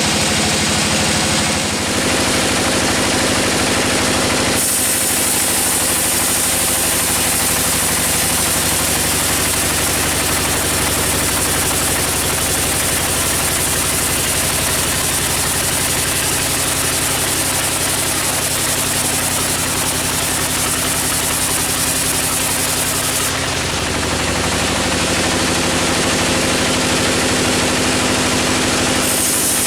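Engine-driven sawmill saw running steadily. From about four seconds in until about twenty-three seconds it cuts through a teak log with a loud, even hiss, then runs free again.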